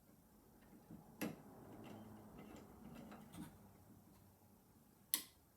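Faint clicks and light scraping as a screwdriver fastens a light-switch faceplate onto the wall box, with one sharp click about a second in and the loudest near the end.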